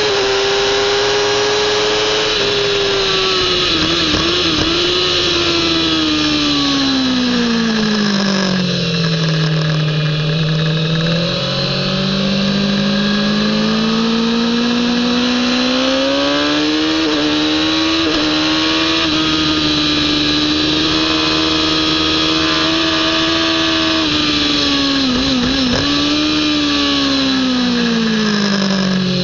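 Kawasaki ZX-10R inline-four sportbike engine heard from on board at racing speed. It is near the top of its revs at first, then falls steadily as the bike brakes, with short rev blips on the downshifts. It climbs again, stepping up through the gears, before falling with more blips near the end, while steady wind noise rushes past.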